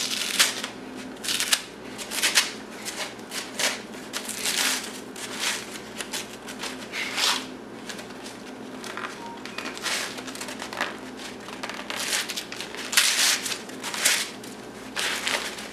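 Outer layers of a brown paper towel roll being torn and peeled off by hand to free the glued end: repeated, irregular ripping and crinkling of paper.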